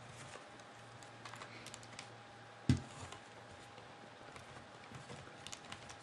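Plastic back case of a Samsung Q1 Ultra Premium UMPC being pressed and snapped back on by hand: scattered faint clicks and one louder click a little under three seconds in, as the case's pressure clips catch.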